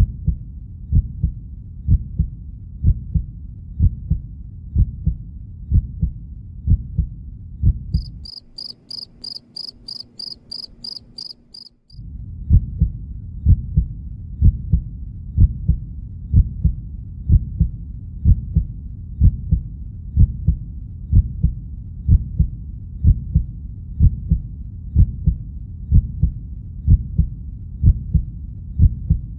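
Heartbeat sound effect: steady low thumps about once a second. About eight seconds in it breaks off for some three seconds, and a rapid high chirping comes in, about four pulses a second. Then the heartbeat resumes.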